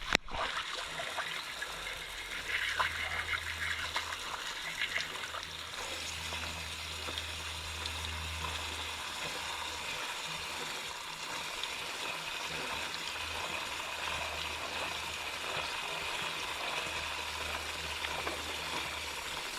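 Water spraying steadily onto a motorcycle drive chain, rinsing off chain cleaner, with a low hum coming and going underneath.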